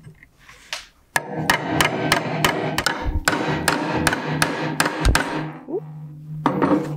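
Claw hammer striking a steel nail punch to drive old nails through a pallet board: a quick run of about fifteen sharp metal-on-metal blows, three or four a second, starting about a second in and stopping a little after the fifth second.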